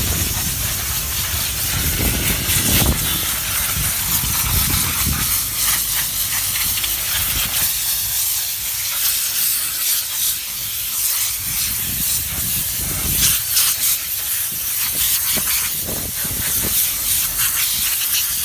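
Steam-wash gun hissing steadily as it jets steam onto a car's bodywork, with a few brief low rumbles.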